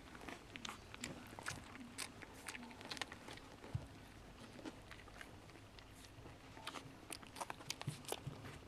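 Two five-week-old Chihuahua puppies play-fighting: faint, irregular small clicks of mouthing and nipping, with scuffling on a quilted blanket.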